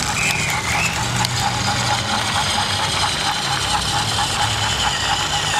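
Battery-powered Thomas Trackmaster toy engine running along plastic track: its small motor whirs with a quick, even clicking from the drive and wheels.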